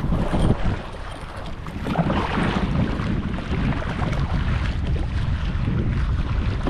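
Wind rumbling on the microphone over sea water splashing and lapping around a kayak, with louder splashes near the start and about two seconds in.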